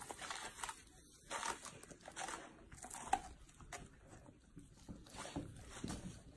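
Golden retriever puppies biting and chewing crisp leafy green vegetable stalks: irregular crunching and tearing, with a sharper crunch about three seconds in.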